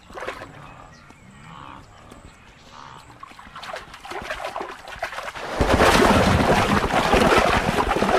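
Faint, scattered sounds, then about five and a half seconds in a sudden loud, continuous splashing and thrashing of water as a crocodile lunges from the water onto a wildebeest and grips it.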